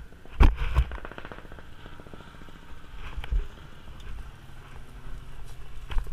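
Mountain bike rattling over a rough dirt trail, with a loud clatter and a burst of rapid ticking about half a second in and sharper knocks from bumps later and near the end, over a low wind rumble on the microphone.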